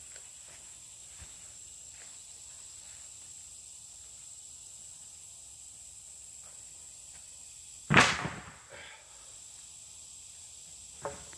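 A long wooden board set down or dropped onto the roof: one loud clattering knock about two-thirds of the way through, then a smaller knock just after. A faint steady high whine runs in the background.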